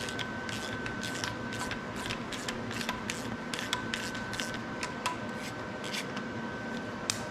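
A wrench on a welded-on nut backing a broken exhaust manifold bolt out of an aluminum LS cylinder head: a string of irregular light clicks and scraping, about two to three a second, as the bolt unthreads.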